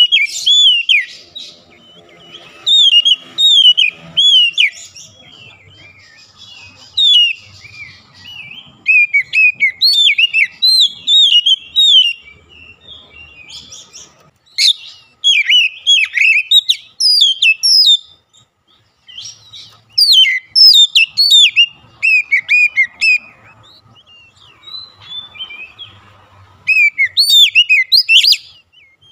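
Oriental magpie-robin singing: loud phrases of quick, sweeping whistled notes, each a second or a few seconds long, repeated with short pauses between.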